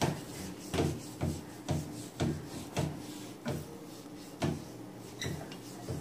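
Sponge scrubbing the greasy glass panel of a kitchen chimney hood with cleaner: repeated short rubbing strokes, about two a second at first, coming more slowly near the end.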